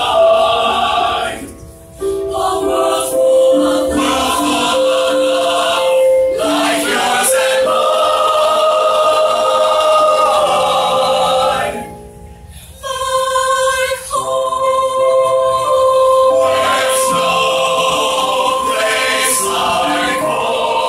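Mixed-voice choir singing sustained chords in harmony, with two short breaks between phrases.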